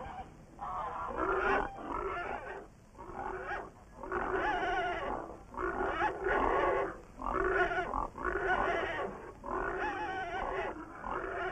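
A pig calling over and over, about one call a second.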